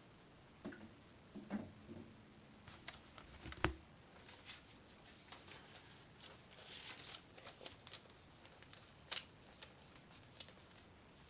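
Faint rustling from a thin sheet being handled, with scattered light clicks and one sharper knock about three and a half seconds in.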